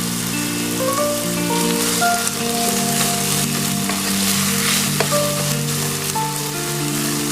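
Food sizzling as it fries in a pan, a steady hiss, with one sharp click about five seconds in. Background music with held notes plays underneath.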